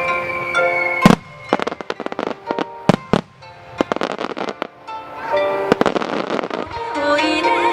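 Aerial fireworks bursting: a loud sharp bang about a second in, then a run of rapid crackling pops. Music plays throughout and swells near the end.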